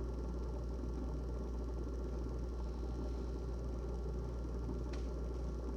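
GE refrigerator running with a steady low hum and a few steady tones above it, with one short, faint tick about five seconds in.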